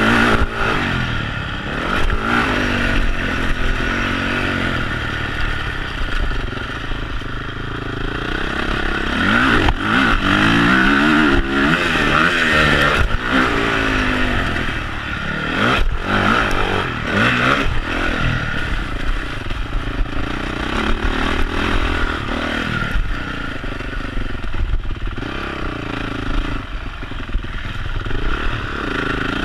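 Honda CRF450 single-cylinder four-stroke motocross bike with a Yoshimura twin exhaust, heard from a GoPro on the bike, revving up and falling off again and again as the throttle is worked around the track. Frequent knocks and clatter come from the bike over the rough dirt.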